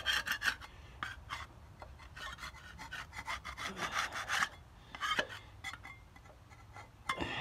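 Gasket surfaces on a Caterpillar Sixty engine block being scraped clean by hand: quick rasping scrape strokes, dense for the first few seconds, then fewer and fainter, with a louder scrape near the end.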